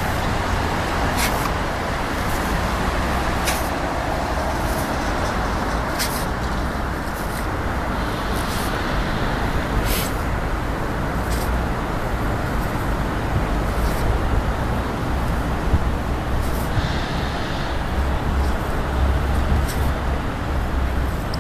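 Steady traffic-like background rumble, with short sharp clicks every second or two.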